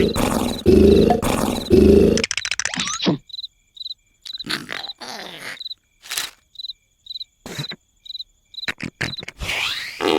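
Loud, rhythmic snoring for the first two seconds, then softer breathing and snorts. A cricket chirps steadily, roughly twice a second, through the quieter middle, and the snoring comes back loudly near the end.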